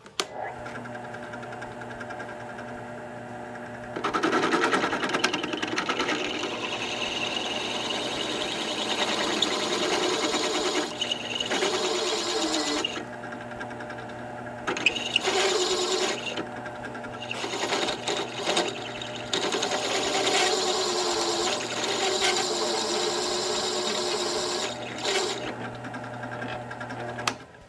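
Benchtop drill press running, its 5/8-inch bimetal hole saw cutting away the swaged collar around a wheel stud on a Willys brake drum hub so that the stud can be pressed out. The motor starts with a steady hum, the cutting begins about four seconds in and eases off a few times in the middle, and the drill stops near the end.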